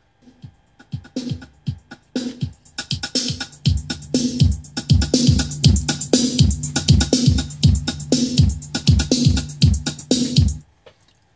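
Intempo Bluetooth speaker playing music from a phone, with a steady bass-drum beat of about two a second: the water-damaged speaker working again after repair. The music comes in quietly, grows louder over the first few seconds, and cuts off near the end.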